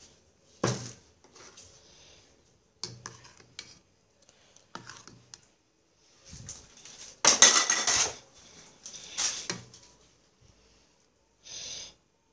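Dishes and cutlery clattering in scattered knocks and clinks, with two longer stretches of clatter about seven and nine seconds in.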